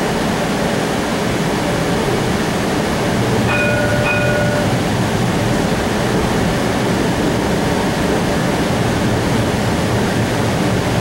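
Interior running noise of a CAF Urbos 3 low-floor streetcar in motion: a steady rumble and hiss, with a short cluster of steady high tones about three and a half seconds in.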